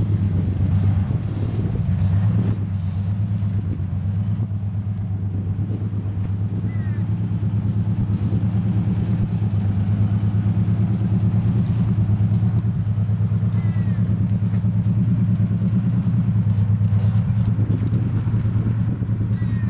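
Lifted Toyota 4Runner's V6 engine running steadily at low revs as the truck crawls along in low gear.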